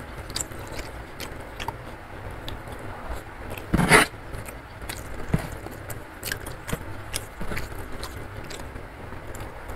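Close-miked eating sounds: chewing and small mouth clicks, and fingers squishing and scraping rice mixed with sambal on a wooden tray. There is one louder short crunch or smack about four seconds in, over a steady low rumble.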